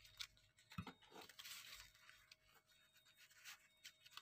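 Faint crinkling and rustling of a banana leaf being folded and rolled by hand around a soft filling, with a soft knock about a second in.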